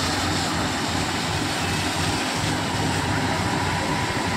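Fire engines running their pumps steadily, with the hiss of high-pressure hose jets spraying water and foam onto a burning transformer.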